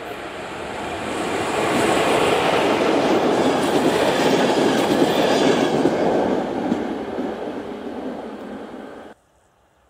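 A ZSSK 'Laminátka' electric locomotive hauling green passenger coaches passes close by: the running noise of wheels on rail swells over the first two seconds, holds, then fades as the coaches go by, and cuts off suddenly about nine seconds in.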